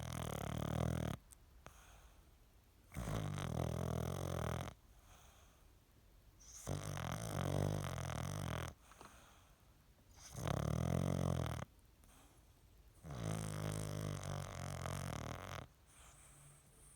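A sleeping dog snoring in a slow, even rhythm: five long, low snores, one every three to four seconds, with much quieter gaps between them.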